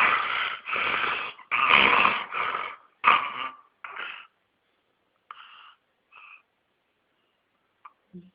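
A pet snoring in a quick series of noisy breaths, about two a second, that trail off after about four seconds into a couple of fainter snores and then stop. Two small clicks near the end.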